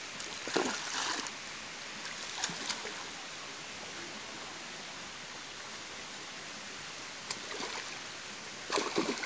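Fish being handled in a fabric landing net on the bank: a few brief rustles and scuffs, the last cluster near the end, over a steady outdoor hiss.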